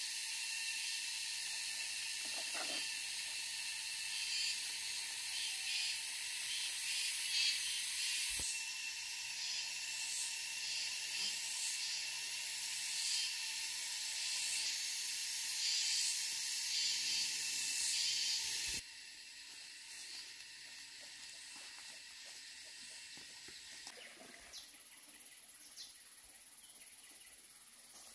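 Dense, steady high-pitched insect chorus that drops abruptly to a quieter level about two-thirds of the way through, with a few faint clicks after.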